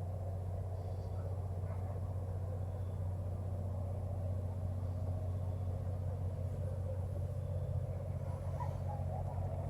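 GM diesel locomotive engine running steadily, a constant low hum with no change in speed.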